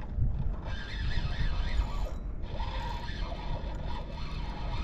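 Fishing reel being cranked to bring in a hooked fish, a steady mechanical winding with a ratchet-like texture, over a low wind rumble on the microphone.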